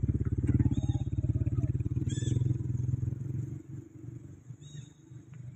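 A motorcycle engine running steadily with a fast low pulse, fading away after about three and a half seconds. A few short high squeaks sound over it.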